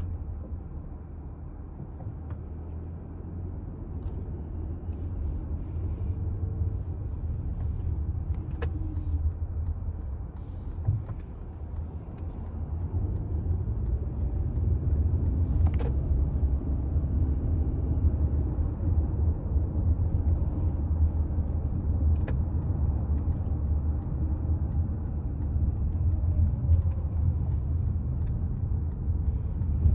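Toyota Alphard Hybrid minivan driving: a steady low road-and-drivetrain rumble that grows louder over roughly the first fifteen seconds as the car gathers speed, then holds steady, with a few faint clicks.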